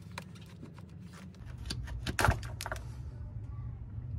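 Small plastic clicks and scrapes as an EVAP vent solenoid is twisted and wiggled loose from its plastic charcoal canister. The loudest clicks come a little past two seconds in.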